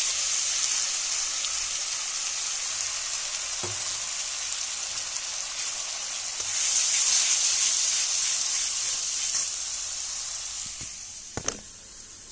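Onion, garlic, ginger and green chilli paste sizzling in hot oil just after being added to the pan: a steady hiss that swells about six seconds in and dies down over the last few seconds. A couple of light clicks near the end.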